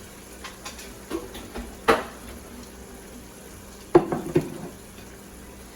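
Pot and cooking-utensil clatter over a faint sizzle of a simmering tomato and pepper sauce: a sharp knock about two seconds in and a quick cluster of louder knocks about four seconds in.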